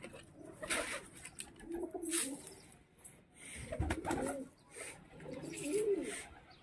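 A flock of domestic pigeons cooing, several low rolling coos one after another, with scattered short clicks and rustles from the birds feeding.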